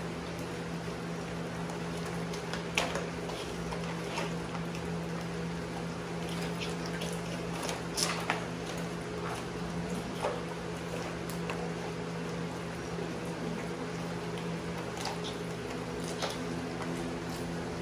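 Pit bull chewing a raw whole fish: scattered wet squelches and crunches over a steady low hum.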